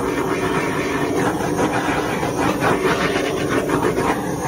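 Handheld torch flame hissing steadily over wet acrylic paint.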